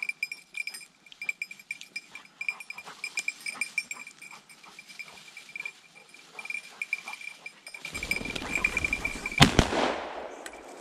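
A single shotgun shot about nine and a half seconds in, following a swelling rush of noise that starts about a second and a half before it. Before that, faint rapid ticking runs over a steady high tone.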